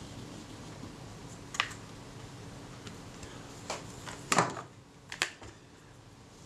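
A few light clicks and knocks from small objects being handled and set down on a workbench, about four in all, the loudest just past the middle, over a faint steady hum.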